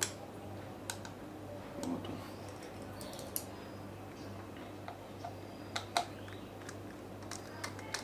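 Scattered small clicks and taps of a precision screwdriver and its bits being handled against an opened MacBook Air, about eight in all, two close together about six seconds in, over a low steady hum.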